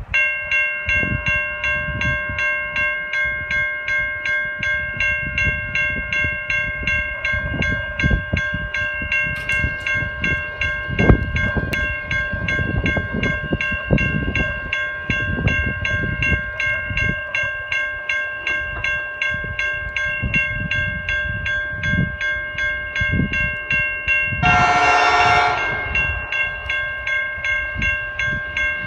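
Level crossing warning bell starting up suddenly and ringing in a steady, even repeating pattern, the crossing activated for an approaching train. Near the end, the approaching freight locomotive sounds one horn blast of about a second and a half.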